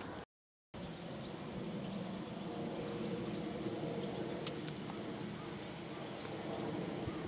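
Outdoor field ambience: a steady rushing noise with a faint low hum and scattered short, high chirps. It drops out to silence for about half a second just after the start, then carries on unchanged.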